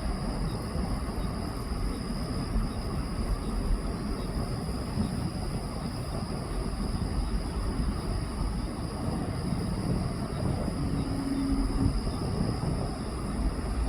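Boeing 767-300 airliner's jet engines: a steady low rumble with a thin high whine over it.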